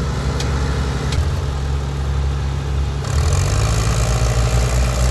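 Fiat 480 tractors' diesel engines running hard under load in a tug-of-war pull. About three seconds in the engine note shifts and gets louder as the throttle is opened further.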